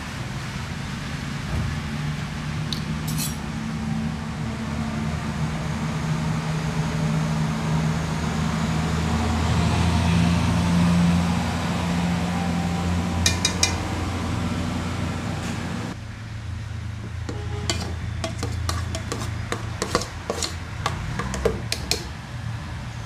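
Metal spoons stirring a liquid mixture in an aluminium pot and scraping and clinking against its sides, with a quick run of clinks over the last several seconds. A steady low hum runs underneath.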